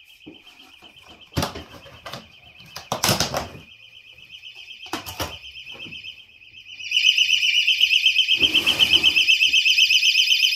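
Handheld personal alarm sounding a fast-warbling high shriek, muffled at first while buried in the insulation, then loud and clear once pulled out about seven seconds in. A few knocks and a rustle come from handling the buckets and insulation.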